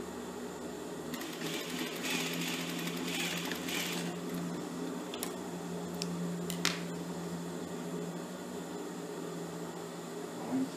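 Industrial straight-stitch sewing machine stitching for about three seconds over the steady hum of its motor. A few sharp snips of scissors cutting the thread follow, and a short thump comes near the end.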